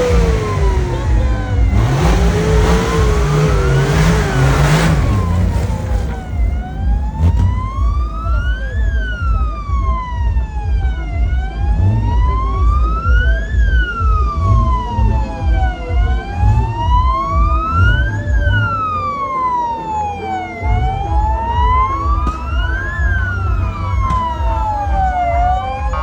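Wail siren sliding slowly up and down, one rise and fall about every four and a half seconds, over a heavy, uneven low thudding. A loud, noisy rush fills the first few seconds.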